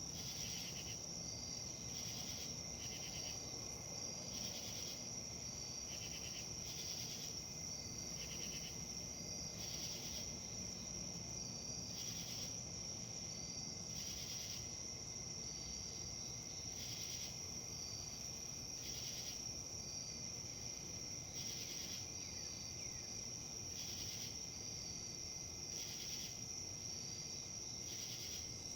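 Insects trilling steadily on one high note, with a louder chirp repeating about every second and a half, over a soft, even rustle of wind.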